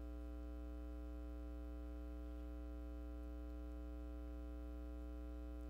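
Steady electrical mains hum with a ladder of evenly spaced overtones, unchanging throughout.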